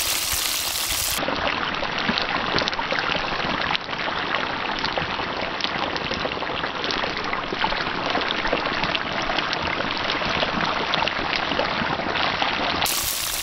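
Battered fish fillets deep-frying in hot grease: a steady sizzle with dense crackling.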